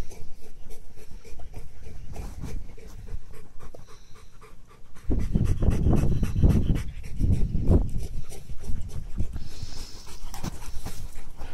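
Yellow Labrador retriever panting close up, the breaths loudest and most rhythmic for a few seconds in the middle, after a quieter stretch.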